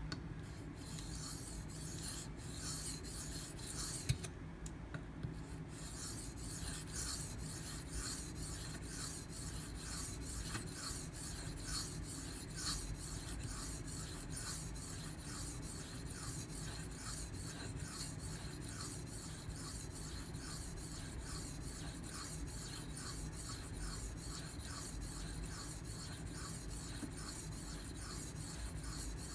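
A steel knife blade, a Dalton 07 Militia, is stroked edge-first across the 1200-grit side of a Venev bonded diamond stone in quick, even scraping strokes, about two to three a second. The strokes break off briefly around four seconds in, with a single click.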